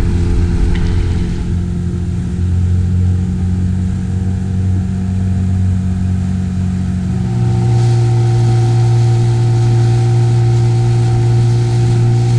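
Outboard motor on an inflatable boat running steadily under way. Its note steps a little higher about two-thirds of the way through.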